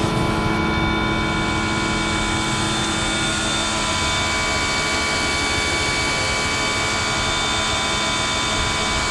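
Pressure washer spraying water onto a car body: a steady hiss of the jet and mist, with the pump motor's steady whine underneath.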